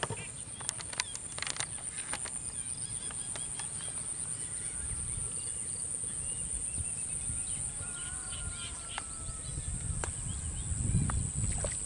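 Insects giving a steady, high-pitched drone in the vegetation, with small chirps over it. A few sharp clicks come in the first couple of seconds, and a low rumble swells near the end.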